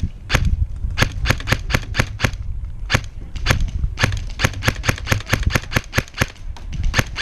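G&G Combat Machine airsoft electric rifle firing a quick string of single semi-automatic shots, about four a second, with short irregular pauses.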